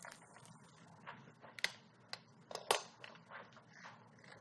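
Scattered light clicks and knocks of kitchen handling: a cooked spaghetti squash half moved with metal tongs and set down on a wooden cutting board, the sharpest knock a little past halfway.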